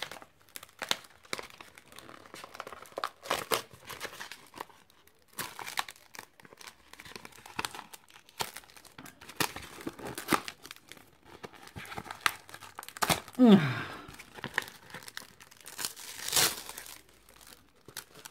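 Paper and clear plastic wrapping crinkling and tearing as a bundle of handmade artist trading cards is unwrapped by hand, in a string of short rustles and rips. About two-thirds of the way in, a brief sound falling in pitch is the loudest moment.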